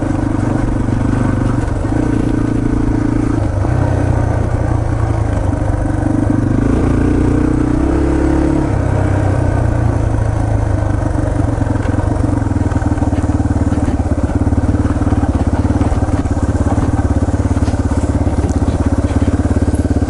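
Yamaha TT-R230's air-cooled single-cylinder four-stroke engine running under way, with its note climbing about six seconds in and dropping back a few seconds later. A few sharp clicks come near the end.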